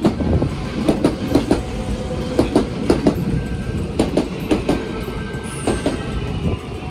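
Kintetsu limited express train running past close by, its wheels clacking over rail joints in quick pairs over a steady rumble. A faint steady whine runs under the clacks.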